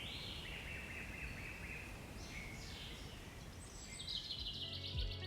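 Birds chirping over a steady outdoor background hiss; music with a plucked guitar and a beat comes in near the end.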